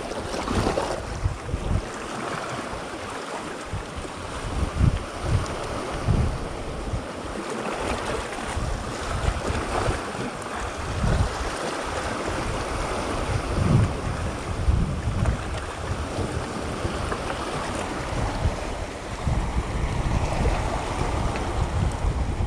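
Sea waves washing on the shore, with wind buffeting the microphone in irregular low gusts.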